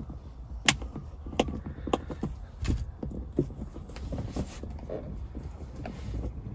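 Side cutters nicking and snipping the outer sheath of a twin-core electrical cable, a string of small sharp clicks at irregular intervals, most of them in the first few seconds.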